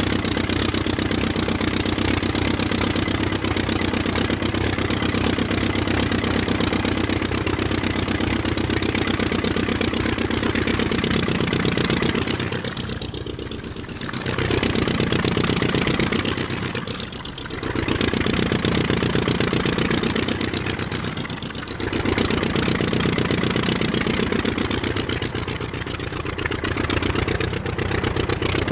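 Aircraft engine running at a steady speed, with a fast, even pulsing. From about halfway through, the sound dips briefly four times and then comes back up.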